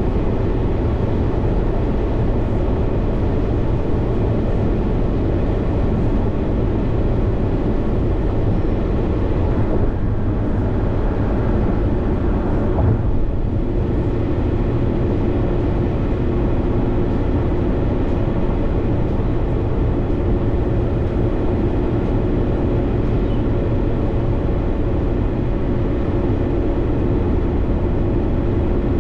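Steady road and engine noise heard from inside a car cruising at highway speed, with a faint steady hum under it.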